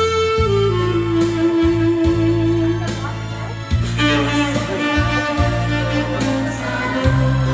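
Tenor saxophone playing a slow ballad melody in long held notes that step down in pitch, over a backing track with a steady bass line.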